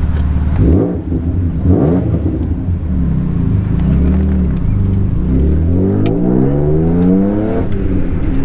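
Alfa Romeo GTV's 3.0 V6 engine pulling the car, heard from inside the cabin. The revs rise and fall twice in the first two seconds, then climb steadily for about five seconds before dropping sharply near the end, as at a gear change.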